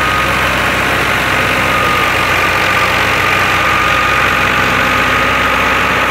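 FIAT 480 tractor's diesel engine running steadily under load, driving a wheat thresher through its PTO, with the thresher running alongside. A thin, steady high whine sits over the engine drone.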